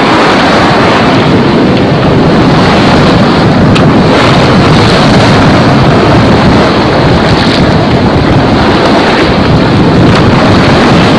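Loud, steady wind noise on the camera microphone aboard a sailboat under way in a 10 to 15 knot breeze.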